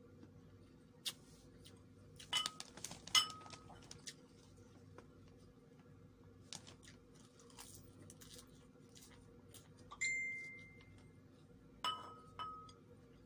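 Tableware clinking as a white ceramic bowl and plate are handled: short ringing clinks around two to three seconds in and again near the end, with one louder clink about ten seconds in that rings on for about a second.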